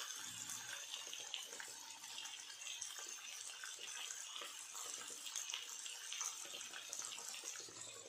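Chicken leg pieces shallow-frying in hot oil in a non-stick pan: a steady sizzle with fine scattered crackles.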